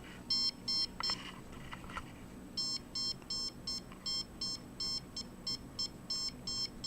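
Handheld RF meter beeping in short electronic pips as it reads a signal: a few in the first second, then a quick run of about three a second from just under three seconds in.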